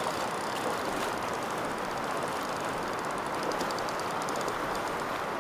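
Steady rush of river water flowing over rocky shallows.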